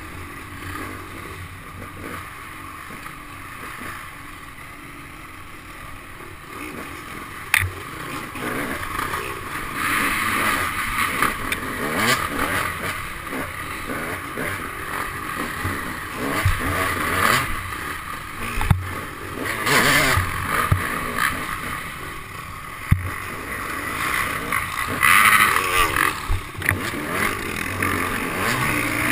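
Dirt bike engine revving up and down as the bike is ridden hard along a rough woods trail, heard close from a camera on the bike, louder from about ten seconds in. A few sharp knocks from the bike hitting bumps.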